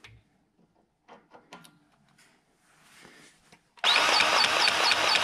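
Faint clicks and rattles as a grease gun's coupler is pushed onto a grease fitting. Near the end a DeWalt cordless grease gun starts suddenly and runs loudly, its pump pulsing fast and evenly as it forces grease into the fitting.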